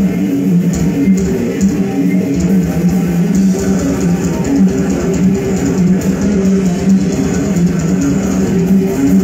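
Death metal band playing live: a loud, dense, unbroken wall of electric guitars and bass guitar.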